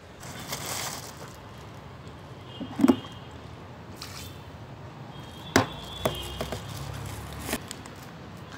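Water tipped from a plastic bucket splashing onto a concrete roof, with a few sharp knocks, the loudest about three seconds in, and the slap of rubber slippers on wet concrete.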